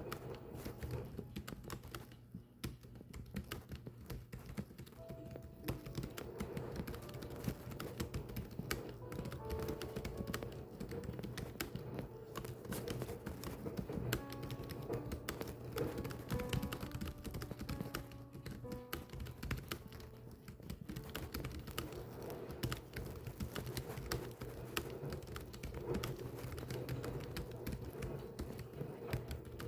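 Rapid, irregular clicking of keys being typed, continuing steadily, over soft background music.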